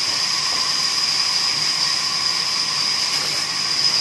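Large vertical band saw ripping a timber plank: a steady high whine over a hiss of cutting, holding an even level throughout.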